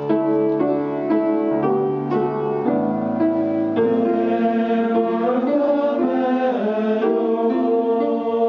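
Men's choir section singing in parts with piano accompaniment, holding sustained chords that shift every second or so.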